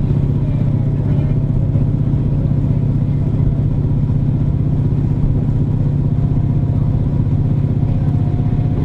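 Inside the passenger cabin of a KiHa 47 diesel railcar: a steady, loud drone from its underfloor diesel engine, mixed with running noise, holding an even pitch.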